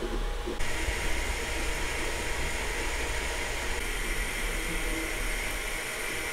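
Sovol SV01 Pro 3D printer running a print: a steady fan hiss with faint steady tones. The sound shifts about half a second in and again near four seconds.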